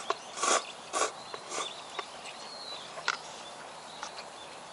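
A person eating ramen noodles, with a few short slurps and mouth noises, the strongest about half a second and a second in. A faint high outdoor chirp, of an insect or bird, sounds underneath.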